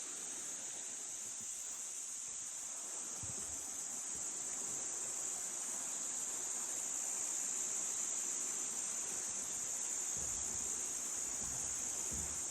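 Steady chorus of insects, a continuous high-pitched buzz, with a few faint low rumbles.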